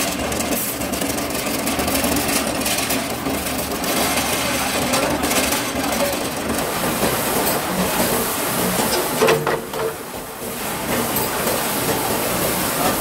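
Motor-driven rod-straightening machine running, with steel rod rattling and clattering through it in a steady mechanical racket. There is a louder clank about nine seconds in.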